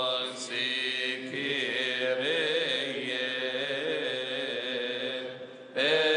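A choir of Coptic Orthodox deacons chanting a liturgical hymn, several voices holding long, slowly moving notes. The chant falls away briefly about five seconds in, then comes back louder.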